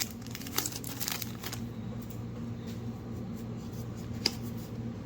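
Foil Pokémon booster pack wrapper crinkling and being torn open in the first second and a half, then quieter handling of the pack and cards with a single sharp click near the end.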